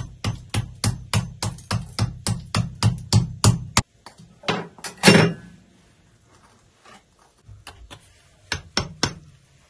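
A knife blade being hammered into a block of ice with a brass pestle. There is a fast, even run of about five blows a second for nearly four seconds, then a few scattered strikes, the loudest a single heavy blow about five seconds in.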